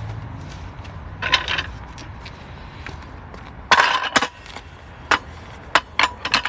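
A series of light clinks and knocks of hard objects being handled: two short clusters, about a second and a half in and nearly four seconds in, then a few single sharp clicks near the end.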